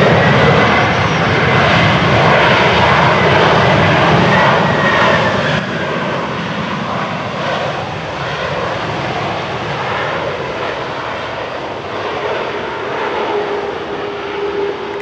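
Boeing 767-300ER airliner's twin jet engines on the landing rollout: a loud rush of engine noise with a whine that rises slightly and then falls. It eases to a lower, steady level about five or six seconds in as the jet slows to taxi.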